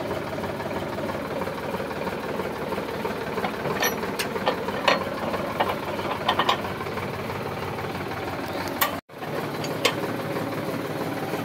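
Tractor diesel engine idling steadily, with sharp metal clinks and clanks scattered through the middle as the rotary tiller's top link and driveshaft are fitted to the tractor's hitch.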